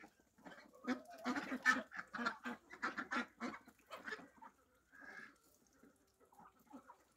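Domestic ducks quacking: a quick run of short quacks over the first few seconds, then a single quack about five seconds in.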